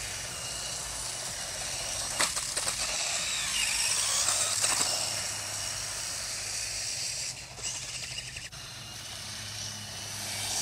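Radio-controlled car running on asphalt: a hiss of motor and tyres that swells to its loudest around four to five seconds in and then eases off, with a few sharp clicks along the way.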